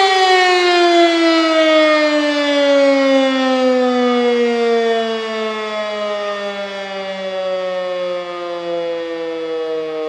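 Rosenbauer rotary siren winding down at the end of its 15-second steady test tone: the motor is off and the rotor coasts, so the pitch falls slowly and evenly while the sound gradually gets quieter.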